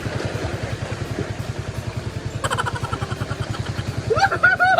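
A small engine running steadily with an even, rapid thumping beat. Two brief high-pitched calls come over it, one about halfway and a louder one near the end.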